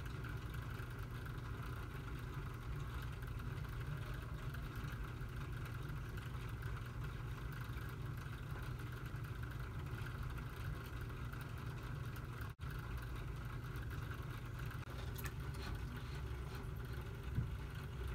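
Underwater aquarium filter running with a steady low hum, and a single soft knock near the end.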